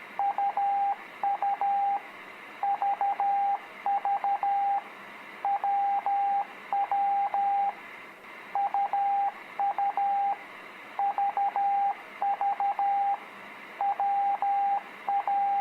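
Morse code (CW) practice tone: a single steady beep keyed into short dits and long dahs, sending the letters U, V and W. There are about twelve characters, with short pauses between them.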